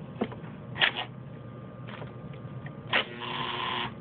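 Central-locking kit's electric door-lock actuators working on a bench from a 12 V battery: a sharp click about a second in, then near the end another click followed by almost a second of buzzing motor whir as the actuators drive their plungers.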